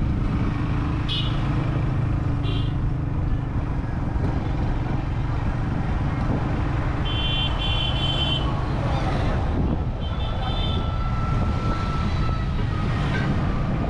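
Onboard motorcycle ride on a busy road: a steady engine and road rumble, with vehicle horns honking several times. There are short beeps about one and two and a half seconds in, a longer honk from about seven to eight and a half seconds, and another around ten seconds.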